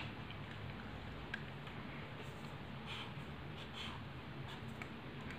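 Pen drawing on lined notebook paper: a few faint scratching strokes as lines are drawn, over a faint steady low hum.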